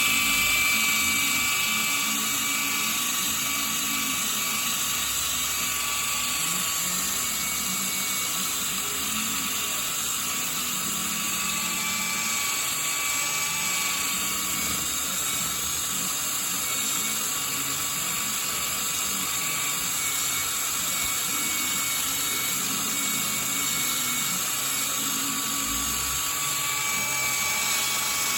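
A high-speed power tool running steadily with a high whine, its pitch wavering slightly.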